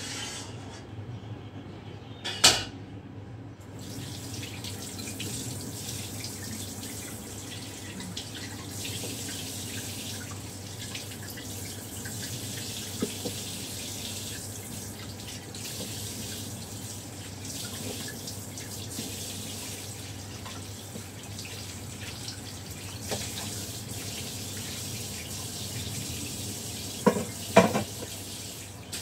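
Water running steadily from a kitchen tap into a sink, starting about four seconds in. A loud sharp knock comes just before the water starts, and two smaller knocks come near the end.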